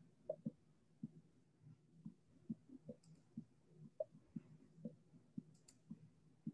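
Faint, irregular clicks and taps, about two or three a second, over near silence.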